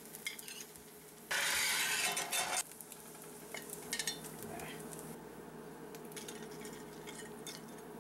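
Metal spatula scraping across the rough, as-cast cooking surface of a cheap modern cast iron skillet for about a second, followed by a few light clinks of the spatula as the eggs go onto a plate.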